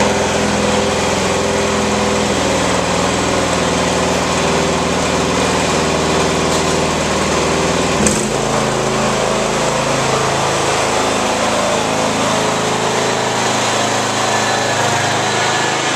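Small gasoline engines of riding lawn mowers running steadily. About halfway through there is a short click and the engine note changes as the deeper drone drops away, leaving a lighter engine sound.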